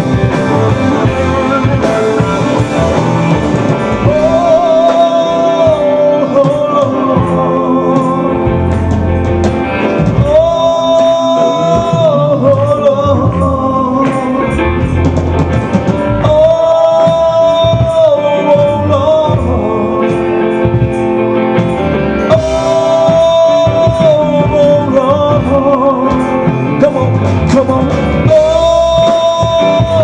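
Live church band playing an amplified rock number on electric guitars, electric bass and drum kit. A held, bending melody line comes back about every six seconds over the steady band.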